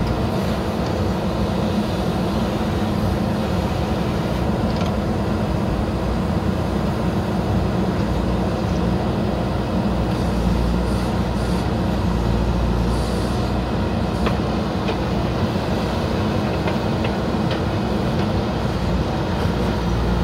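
Diesel engine of a JCB 3DX backhoe loader running steadily at working speed while its backhoe arm digs into mud.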